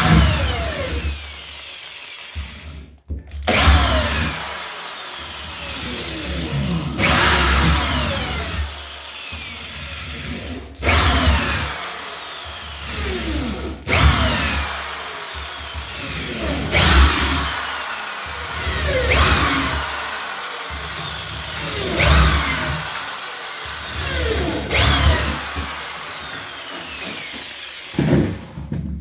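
Electric drill boring pilot holes through wooden floorboards into the joist beneath, run in repeated bursts about every three seconds, its pitch falling through each burst.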